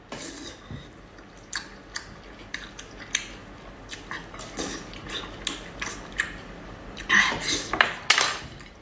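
Close-miked eating sounds: a person biting seafood off a skewer and chewing it with wet mouth clicks, with a louder burst of slurping and smacking about seven seconds in.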